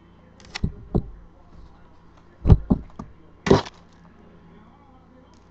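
Sneakers being set down and shifted on a hard surface: a handful of sharp knocks and taps, with a brief scuffing rustle about three and a half seconds in.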